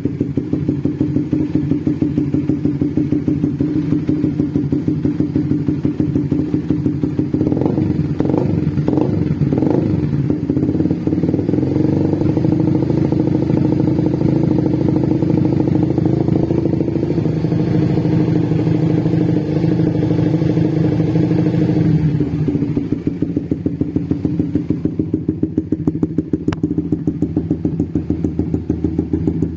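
Bored-up Suzuki GSX-R150 single-cylinder four-stroke engine idling with an even, pulsing beat, the 'drum band' idle of the tuned engine. About eight seconds in it takes four quick throttle blips, then is held at slightly higher revs for about ten seconds before settling back to idle.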